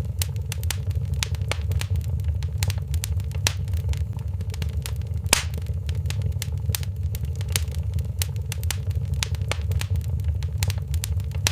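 Wood fire in a fireplace crackling, with many irregular sharp pops and snaps over a steady low rumble; one louder pop about five seconds in.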